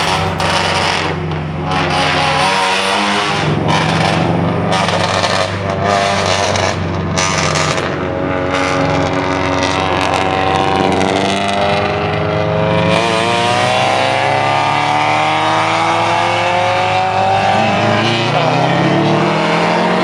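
1991 Honda CR-X Si's 1.6 DOHC four-cylinder engine through an open exhaust with no muffler. In the first half the revs rise and fall unevenly. From about two-thirds of the way in, the engine pulls hard with its pitch climbing steadily, dips at a gear change, then climbs again.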